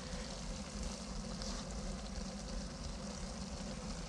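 Faint steady sizzle of minced meat frying in a cast-iron kazan over a charcoal grill, with a steady low rumble underneath.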